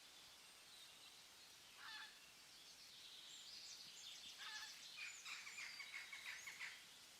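Faint forest birdsong: one bird gives a short call about two seconds in, then a quick run of repeated chattering notes from about four seconds in until near the end, over a soft high background hiss.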